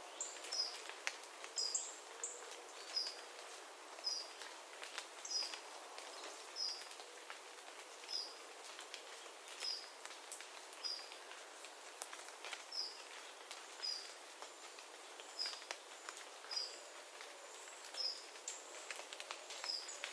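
Forest ambience after rain: a bird repeats a short high chirp about once every second or so over a faint steady hiss, with scattered light ticks throughout.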